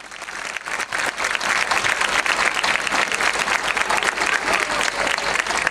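Audience applauding, many hands clapping together. It swells over the first second, then holds steady.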